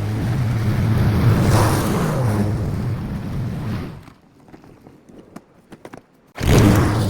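Lawn mower engine running steadily. About four seconds in it drops away to a quiet stretch with a few faint ticks, then comes back suddenly at full level about two seconds later.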